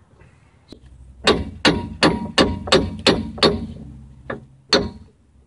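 Hammer blows on the Dana 30's steel pinion yoke, knocking it off the pinion splines: a quick run of about seven metallic strikes, roughly three a second, then two more spaced blows near the end.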